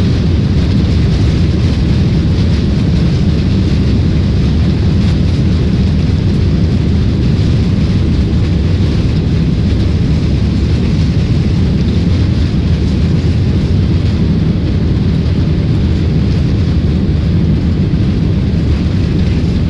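Steady cabin noise of a jet airliner in flight: engine and airflow noise, heavy in the low end and unchanging.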